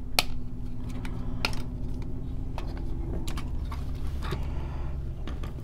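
Scattered light clicks and taps of a Maketoys Howling Meteor transforming figure's plastic parts being handled and snapped into place.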